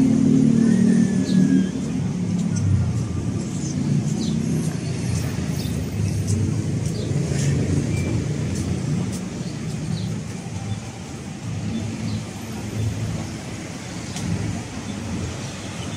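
Road traffic: motor vehicle engines running close by. One engine hum is loudest for the first second and a half, then the sound settles into a steady traffic rumble.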